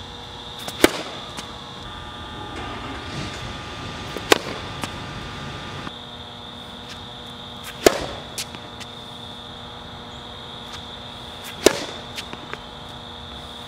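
Tennis racket hitting the ball four times, about every three and a half seconds, each a sharp pop, on a serve and then forehands. A steady high-pitched whine runs underneath.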